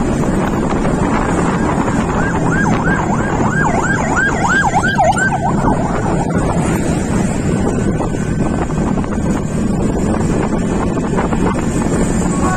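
Wind roaring on the microphone over road noise. About two seconds in, a siren wails for about three seconds, sweeping quickly down and up in pitch about eight times.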